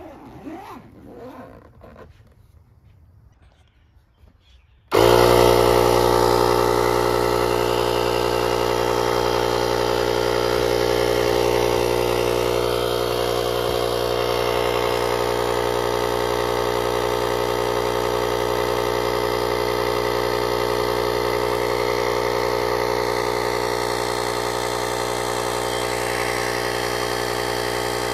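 Faint handling, then about five seconds in the JFEGWO jump starter's built-in 12-volt air compressor switches on abruptly and runs steadily, a loud, even motor hum with many overtones, pumping up an inflatable pool float.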